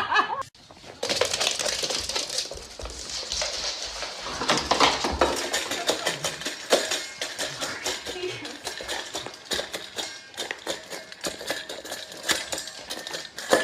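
Dense, irregular clattering and clicking of hard objects knocking together.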